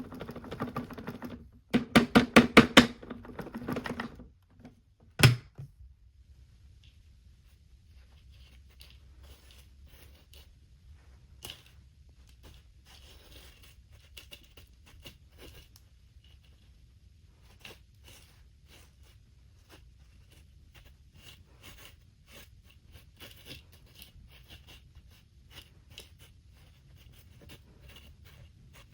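Handling noises with the vacuum cleaner not running: a quick run of about eight clicks, a single thump about five seconds in, then faint scattered ticks and rustles.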